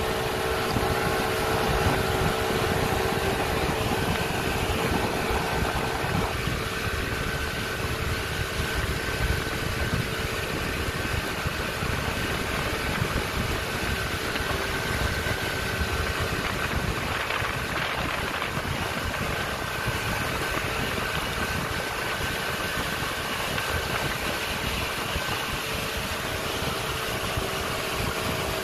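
Small fishing boat's engine running at a steady speed while the boat is underway, a constant hum over a steady rushing noise.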